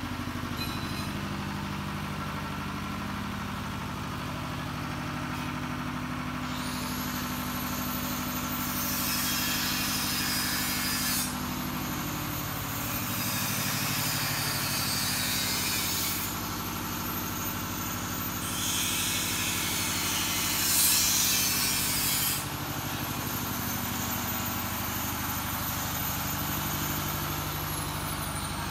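A steady low engine hum, like a motor idling, runs throughout. A loud hiss swells over it in three long stretches, each lasting several seconds.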